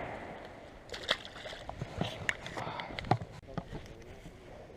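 Water sloshing lightly, with scattered small clicks and knocks of handling close to the microphone.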